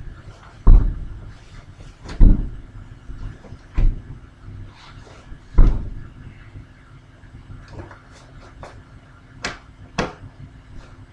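A krump dancer's stomps on a sheet-covered wooden floor: four deep thuds about one and a half seconds apart, then two sharper, lighter hits half a second apart near the end.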